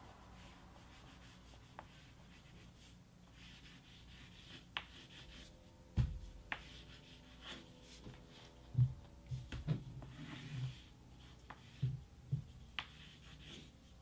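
Graphite scratching across large brown paper in repeated drawing strokes, with scattered sharp taps and knocks and one heavier thump about six seconds in.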